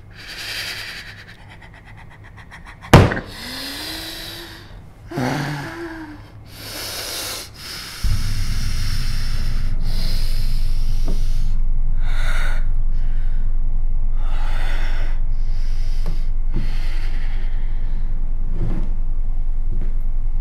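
Heavy, ragged breaths and gasps, broken by a single sharp revolver shot about three seconds in. About eight seconds in, a steady low drone sets in under the continuing breaths.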